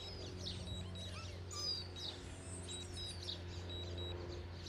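A DJI drone remote controller beeping in a steady run of short, high beeps, the warning it gives while the drone is on automatic return-to-home. Birds chirp throughout.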